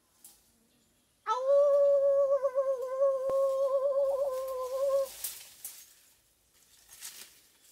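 A person's voice holding one long, high, slightly wavering note for about four seconds, starting a little over a second in.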